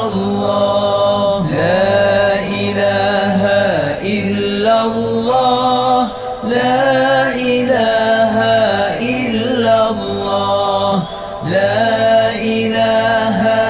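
Melodic Islamic zikir chanting: a voice sings drawn-out, repeated phrases of remembrance of God, with short breaks between phrases about six and eleven seconds in.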